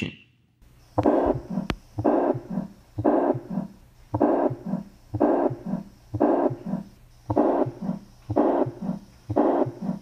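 Heart sounds with the murmur of tricuspid regurgitation, beating about once a second. A holosystolic murmur fills the gap between the first and second heart sounds on each beat.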